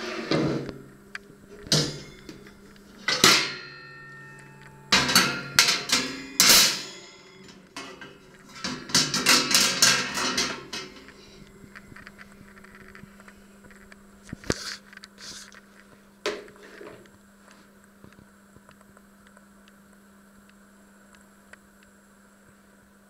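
Stainless steel grill parts clanking and ringing as they are handled and the wire grate is set onto the tray: a run of sharp metallic clanks over the first ten seconds or so, then a couple of lighter clicks, then quiet.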